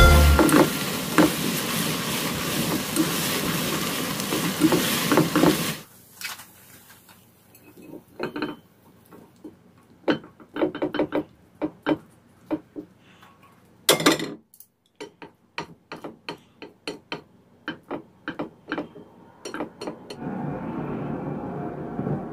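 Tomato, onion and egg scramble sizzling in a frying pan; the sizzle cuts off about six seconds in. Then a long run of sharp scrapes and taps of a utensil against the pan as the food is scraped out onto a plate.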